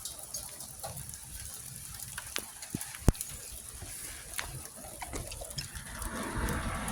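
Hail and rain falling, with scattered sharp ticks of hailstones striking and one louder tick about three seconds in. A steadier wash of falling water builds near the end.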